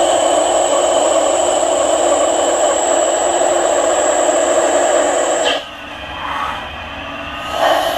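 CNC lathe running while cutting stainless steel: a steady machine noise with a high whine, which cuts off abruptly about five and a half seconds in, leaving a quieter, shifting sound for about two seconds before the steady noise returns near the end.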